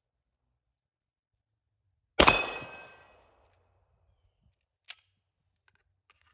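A single 9mm pistol shot from a Canik Rival-S, a sudden crack with the ringing of a struck steel target plate dying away over about a second. A small click follows a few seconds later.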